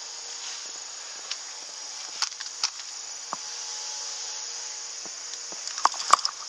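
Steady high-pitched insect drone with scattered light clicks and rustles of someone moving through bamboo brush, and a couple of sharper clicks about six seconds in.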